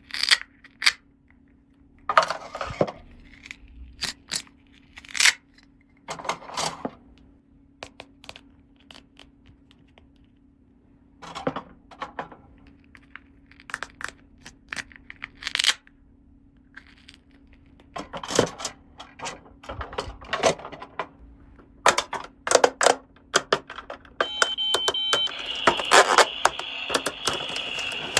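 Small hard plastic toy pieces clicking, tapping and scraping as they are handled and set down, with brief rustles of packaging. Near the end a steady high tone and a denser hiss come in and keep going.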